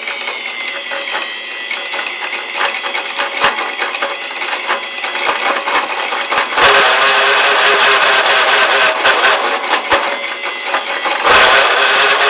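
Homemade metal lathe running while a hand-fed cutting tool scrapes and chatters against a metal workpiece. The sound grows louder about two-thirds of the way through and again near the end.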